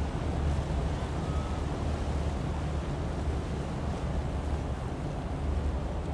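Wind buffeting the microphone in a low rumble, over small waves washing against shoreline rocks.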